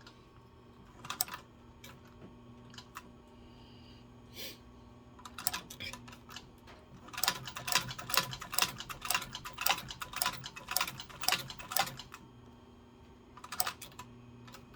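Leather sewing machine stitching with top and bottom thread: a few single needle strokes, then a run of rapid mechanical clicks at about three stitches a second through the middle, over a steady low hum.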